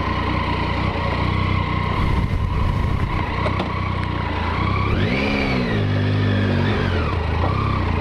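Triumph motorcycle engine running at low speed, with a short rise and fall in revs about five seconds in.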